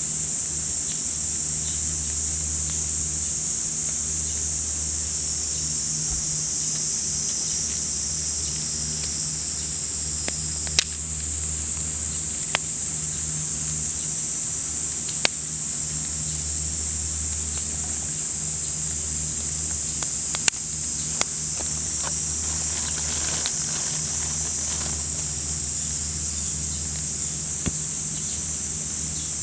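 Cicadas droning in a steady, high-pitched summer chorus, with a low steady hum underneath and a few sharp clicks partway through.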